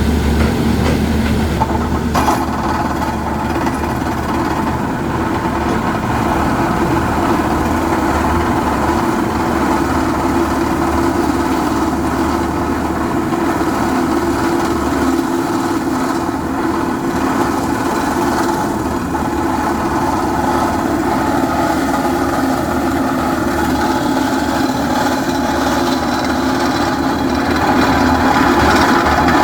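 Heavy drilling rig running steadily, boring by grinding through a reinforced-concrete foundation and its steel rebar. The steady machine noise swells slightly near the end.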